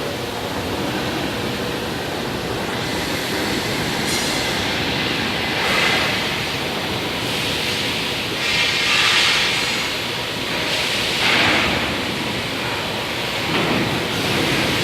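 Electric overhead crane running on its rails: a steady mechanical rumble with hissing swells every two to three seconds.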